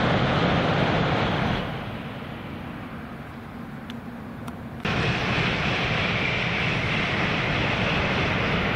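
Shinkansen bullet train passing at full speed, a loud even rushing noise that dies away over about a second as the train clears. About five seconds in, a steady rushing noise cuts back in abruptly at full level.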